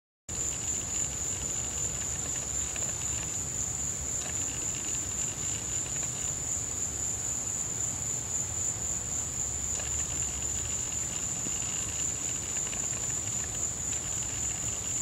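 Night insects trilling in one steady, high-pitched drone, with a fainter, lower chorus that swells in and out.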